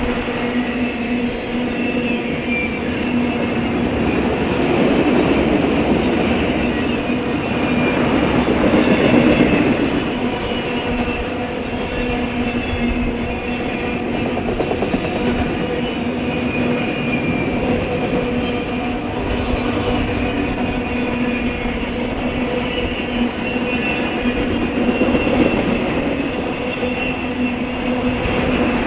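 Freight train autorack cars rolling past close by: a continuous rumble of steel wheels on rail with a steady whine riding on it, swelling a little several seconds in.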